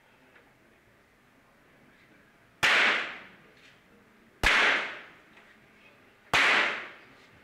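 Three .22 rimfire free pistol shots from different shooters, about two seconds apart. Each is a sharp crack that trails off within about half a second.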